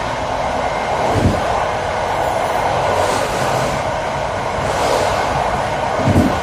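Passenger train carriage running at speed on electrified track: a steady rumble of wheels on rail, with two heavy thuds from the wheels, about a second in and near the end, while the train runs over a set of points.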